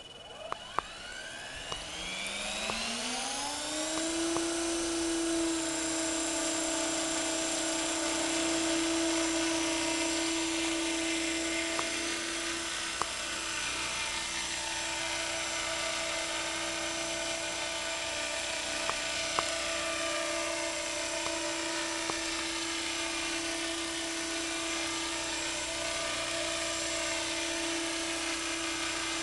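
Thunder Tiger Innovator MD 530 radio-controlled electric helicopter spooling up: the whine of its motor and rotors rises in pitch over about four seconds, then holds a steady pitch as the helicopter lifts off and hovers.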